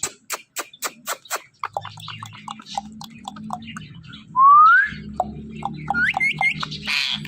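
A pet parrot clicking, chirping and whistling: a run of quick clicks at the start, then a loud rising whistle about halfway through, a quick series of rising chirps, and a short harsh squawk near the end.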